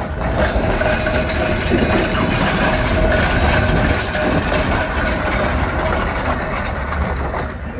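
Blackpool Balloon double-deck tram 707 passing close by: a steady rumble from its running gear on the rails with a steady motor whine, easing off slightly near the end.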